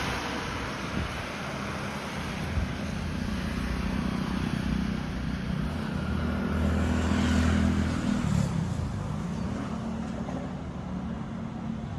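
An engine running steadily with a low hum, swelling in level about six to eight seconds in.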